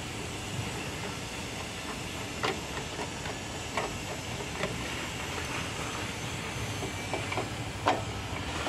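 Steady hiss of background noise with scattered light clicks and knocks, the sharpest near the end, from handling the metal housing of a CNC plasma cutter's controller box.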